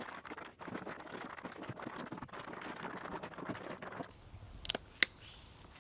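Dense rustling and clattering of stones and dry forest litter being handled in a rock pile, stopping abruptly about four seconds in; then two sharp clinks near the end.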